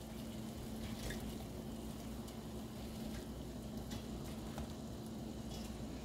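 Large stainless stockpot of water at a boil with ears of sweet corn in it: a quiet, steady bubbling hiss over a steady low hum, with a few faint ticks.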